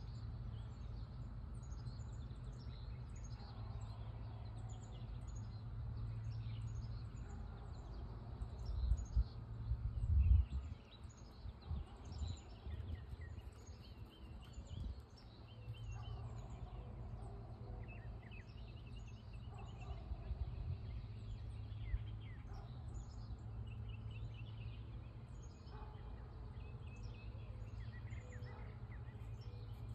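Outdoor ambience of small birds chirping and trilling again and again, over a steady low hum. A few louder low rumbles come about nine and ten seconds in.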